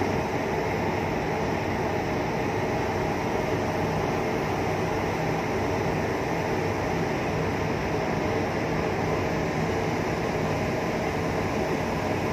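Steady drone of a ferry's engines, a low hum of several even tones under a constant rushing noise, heard from the open deck.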